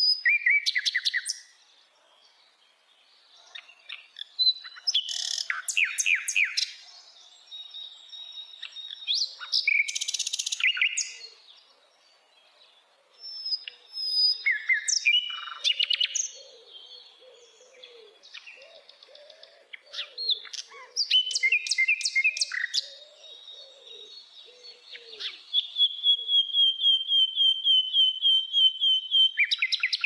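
Nightingale singing: a series of varied song phrases of whistles, trills and clicking rattles, separated by short pauses. The last phrase is a long, rapid run of repeated notes.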